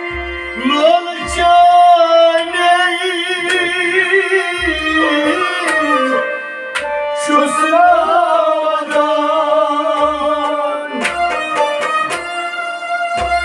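Kashmiri folk music: a man sings two long, wavering phrases over a steady harmonium drone. Bowed sarangi and plucked rabab play along, with a low thump roughly once a second.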